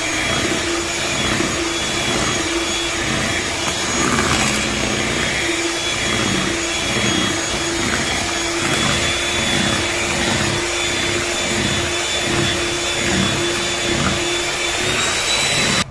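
Majesty HM01 electric hand mixer running at a steady speed, its twin beaters whipping a thick mango ice cream mix in a steel bowl: a loud, steady motor whine with a high tone over it, cutting off suddenly at the very end.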